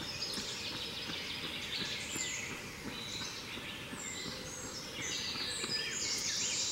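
Several songbirds singing at once in spring woodland: overlapping high chirping and trilling phrases, a little louder in the last couple of seconds.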